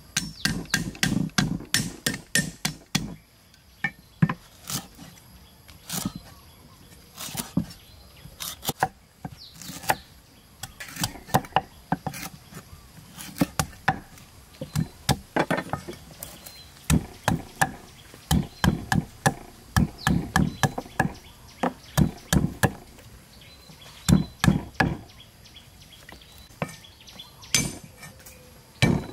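Cleaver chopping on a thick wooden chopping block, first through lemongrass and then through ginger: bursts of quick, sharp knocks with short pauses between them.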